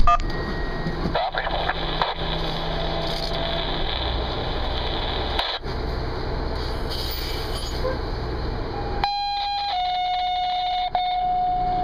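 Steady engine and cab noise of a fire engine standing still. About nine seconds in, a two-tone dispatch page comes over the radio: a short higher tone, then a longer steady lower tone.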